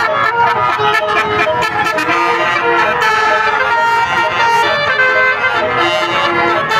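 Tour bus 'telolet basuri' musical air horn playing a tune: a loud, reedy multi-tone horn moving from note to note without a break.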